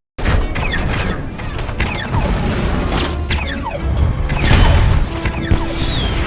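Transformers-style robot transformation sound effect: a dense run of metallic clanks and ratcheting mechanical shifts, with quick falling whines, over a low rumble.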